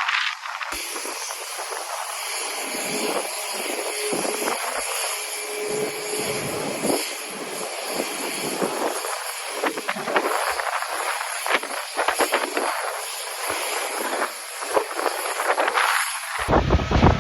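Jet airliner engines running: a steady high whine over a broad rushing hiss.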